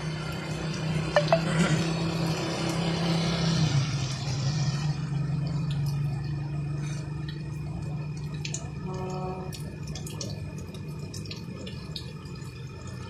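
Heavy rain pouring onto a paved road and a wet forecourt, with drops dripping from the roof edge. It is heaviest in the first few seconds, then eases a little.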